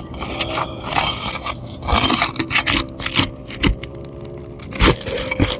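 A tool scraping and clicking under roof shingles, working along the row to free them and find the nails, in irregular short strokes with sharp knocks.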